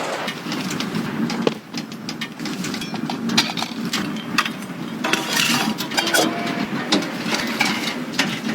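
Objects being handled: irregular clicks and knocks over rustling, with a few short clinks about five to six seconds in.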